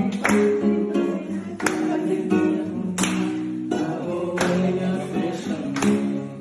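Acoustic guitar (violão) strumming chords, with a sharp strum about every second and a half and the chords ringing on between strums.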